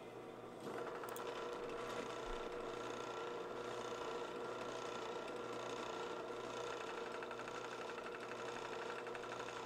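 A machine running with a steady, even hum that gets louder about half a second in and then holds level.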